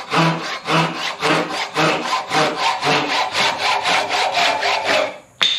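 Japanese pull saw cutting through a wooden axe handle held in a vise, in fast, even rasping strokes about two a second. The strokes stop about five seconds in as the cut finishes, followed by a single sharp knock.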